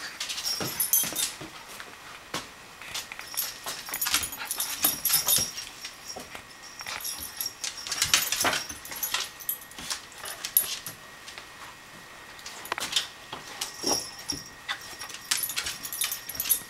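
A corgi and a cairn terrier play-scuffling: claws clicking and scrabbling on a vinyl floor, and the jingle of collar tags, with occasional short dog whines.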